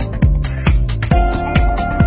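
Background electronic dance music: a steady kick-drum beat about two times a second, with hi-hats and held synth chords.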